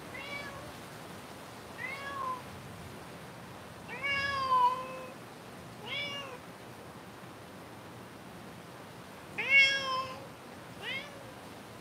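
Domestic cat meowing about six times at irregular intervals. Two longer, louder meows come about four seconds in and again near the end, over a steady faint hiss.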